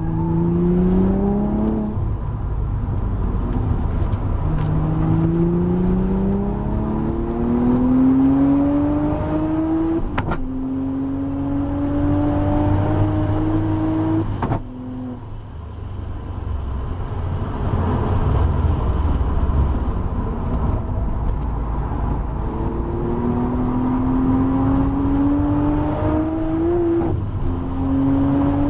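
Audi B5 RS4's 2.7-litre twin-turbo V6, heard from inside the car, pulling hard under boost on track. The engine note rises through each gear and drops at quick upshifts, cuts off abruptly about halfway through as the car slows for a corner, then climbs again near the end, over steady road and wind noise.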